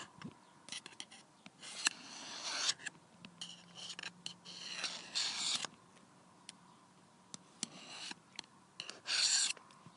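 Weird mouth noises made by a person: short hissing, rasping bursts broken up by sharp clicks and pops.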